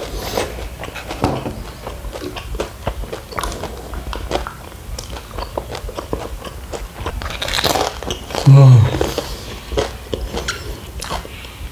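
Chewing and mouth sounds of someone eating kunafa, the cheese-filled shredded-pastry dessert, with many small wet clicks. About eight and a half seconds in, a short hum from the eater's voice, falling in pitch.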